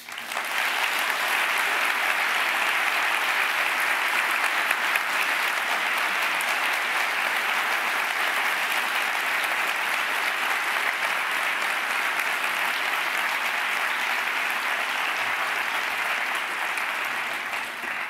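Large audience applauding: the clapping breaks out suddenly, holds steady and dense, and fades only near the end.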